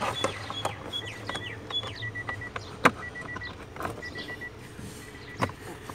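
Plastic clicks and knocks as a Bluetooth OBD-II scan tool is pushed into the diagnostic port under a car's dashboard, with one sharp click about three seconds in. A high chirping beep repeats steadily in the background.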